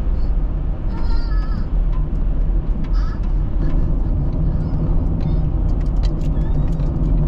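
Steady low road and engine rumble of a car being driven, heard from inside. A couple of brief high-pitched wavering sounds rise over it about one and three seconds in.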